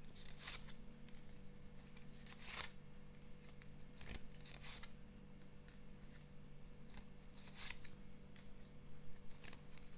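Faint rustling and soft snaps of a Lenormand card deck being shuffled and cards drawn, in a handful of separate short bursts, over a steady low hum.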